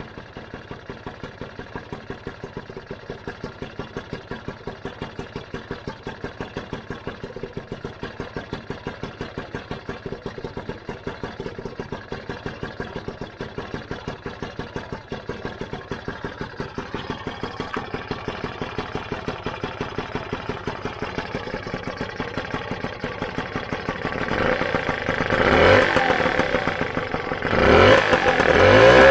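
Lambretta GP's rebuilt single-cylinder two-stroke engine idling with a fast, even firing beat. It is revved up and back down a couple of times near the end.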